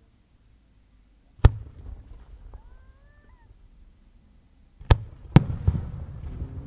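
Aerial firework shells: a deep boom about 1.5 s in, then two sharp loud bangs near 5 s as a shell bursts overhead, followed by a rolling rumble with faint crackle.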